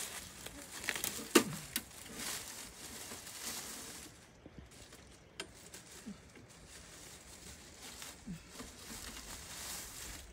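Brush and palm fronds rustling and crackling as they are pulled by hand from the sand under a stuck motorcycle, with a couple of sharp snaps in the first two seconds.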